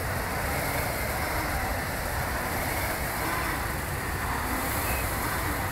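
Several air-resistance rowing machine flywheels whirring together as the rowers keep pulling, a steady mechanical whoosh with no clear stroke-by-stroke pause.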